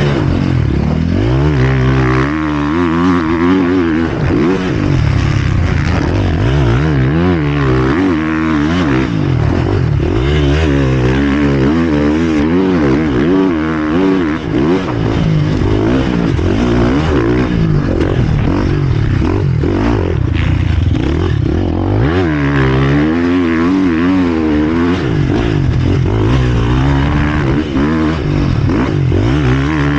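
Motocross bike engine heard close from on board, its revs rising and falling over and over as the rider works the throttle and shifts through the corners, with a brief drop about halfway through.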